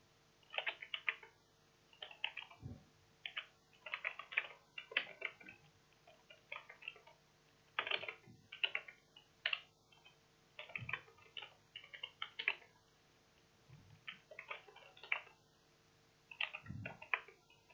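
Computer keyboard typing: quick runs of keystrokes in short bursts with brief pauses between them.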